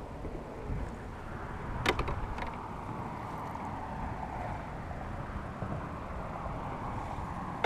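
Landing net knocking against the boat as a netted crappie is swung aboard: one sharp knock about two seconds in, then a couple of lighter clicks, over a steady low rumble of wind on the microphone.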